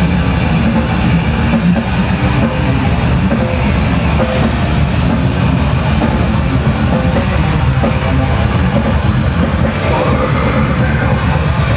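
Death metal band playing live through a PA: heavily distorted electric guitars over rapid, dense drumming, loud and continuous.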